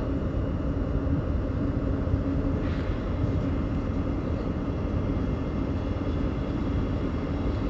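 Koleje Mazowieckie double-deck electric multiple unit running past on a far station track: a steady rumble of train noise, with a low hum for the first couple of seconds.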